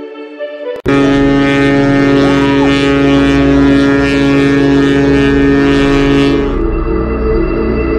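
Container ship under way at sea: a loud, steady low drone with rushing water and wind noise, cutting in suddenly about a second in. The rushing fades out near the end, leaving a steadier tone.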